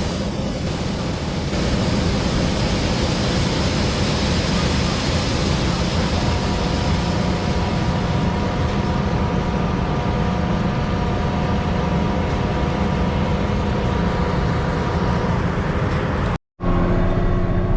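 Combine harvester running steadily, with a constant low hum; a steady whine joins about a third of the way in and fades before the end. The sound cuts out for an instant near the end.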